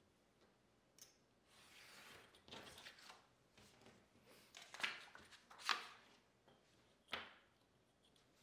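Paper sheets sliding and rustling on a cutting mat while a steel ruler is lifted and laid back down. There is a short rustle, then three brief, sharper swishes and a tap from about five to seven seconds in.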